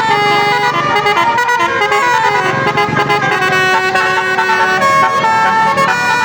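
Bus 'telolet' basuri horn, a multi-note air horn, playing a tune: loud chords of horn tones stepping from note to note without a break.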